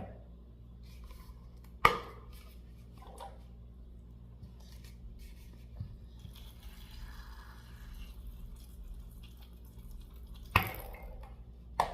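Biotrue contact lens solution squeezed from its plastic bottle into a bowl of glue mixture, with faint dripping and liquid sounds. A few sharp clicks stand out: the loudest about two seconds in, and two more near the end.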